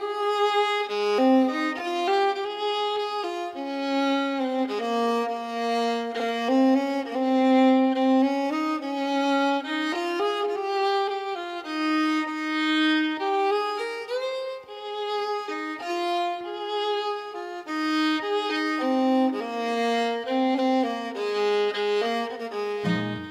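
Instrumental background music: a single melody line with no bass, until lower notes come in near the end.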